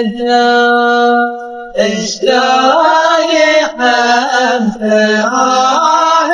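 A voice singing in a chant-like style: a long held note that breaks off about a second in, then a wavering melodic line from about two seconds on.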